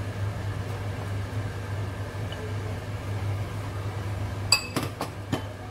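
Steady low hum, then, about four and a half seconds in, a quick run of sharp ringing clinks and one more just after: a spoon knocking against the stainless steel pot and ceramic bowl while prawns are added and stirred in.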